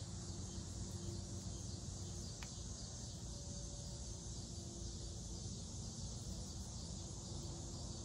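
Steady outdoor background of an insect chorus, an even high-pitched hiss of crickets or similar insects, with a faint low hum underneath.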